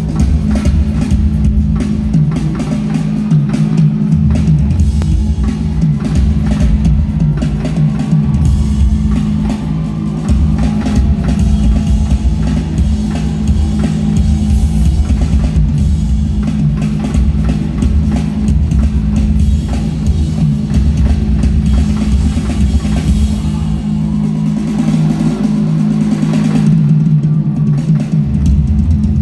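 Live rock drum solo on a full drum kit, amplified and heard from the audience in an arena. Heavy kick drum and dense hits throughout, with a steady low drone underneath.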